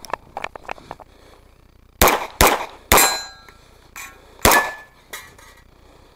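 Pistol shots: four in all, three in quick succession about two seconds in and a fourth about a second and a half later, several trailed by a brief metallic ring. Small faint clicks come before the first shot.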